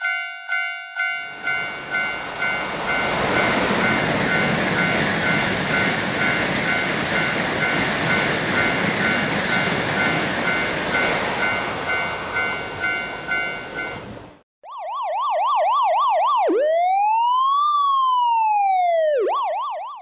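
A railroad crossing bell rings in rapid, evenly paced dings. About a second in, a high-speed train starts rushing past with a loud, steady noise for some thirteen seconds, the bell still ringing under it. After a brief gap, a siren-like sound effect wails: quick wobbling pitch, then one slow rise and fall, then quick wobbling again.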